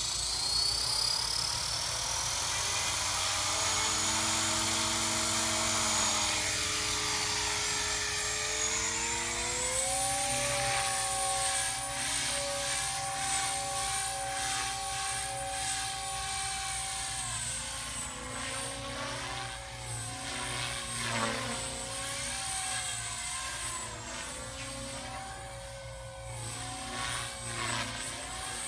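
E-flite Blade 300 CFX electric RC helicopter spooling up: the brushless motor's whine rises in pitch over the first few seconds. Then the motor and rotor run steadily as the helicopter flies, the pitch bending up and down as it manoeuvres.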